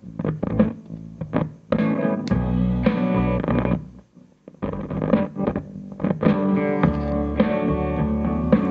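Guitar music with a heavy bass line, played through a SOCL 504 power amplifier board modified for collector output and heard from its speaker as the amplifier is tested. The music drops out for about half a second around four seconds in, then comes back.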